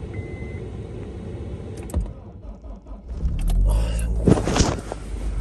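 Car engine being cold-started on an icy night: a click about two seconds in, then the starter cranks and the engine catches about three seconds in and settles into a steady idle.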